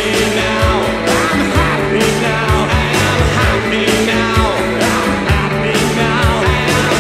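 Rock song playing with a steady drum beat under a sustained bass line and guitar.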